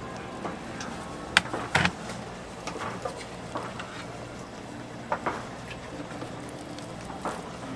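Silicone spatula scooping chunky chicken pie filling from a stainless steel pan: scattered light knocks and scrapes against the metal, the loudest a little under two seconds in, over a steady low hum.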